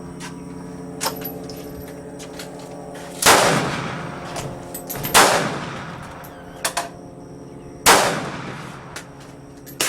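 Rifle shots fired one at a time, three loud reports a couple of seconds apart and a fourth just at the end, each ringing off briefly, over a steady hum.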